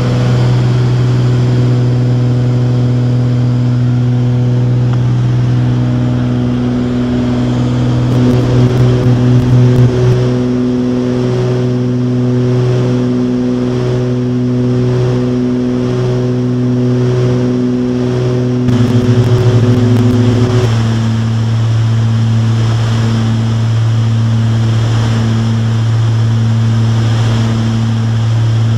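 Twin-engine light aircraft's piston engines and propellers droning steadily in flight, the two engines slightly out of sync so the drone throbs in a slow beat about once a second. The pitch drops abruptly about two-thirds of the way in.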